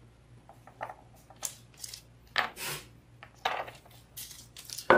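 Handling noise from a plastic 3D resin-printer vat wrapped in a heater band being turned over and set down on a tabletop: a string of short taps, rubs and scrapes, with the lead wires rustling.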